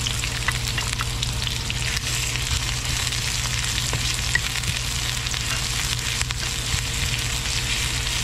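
Sliced onions sizzling in hot oil in a stainless steel wok, just put in to sauté, stirred with a wooden spatula that taps and scrapes lightly now and then.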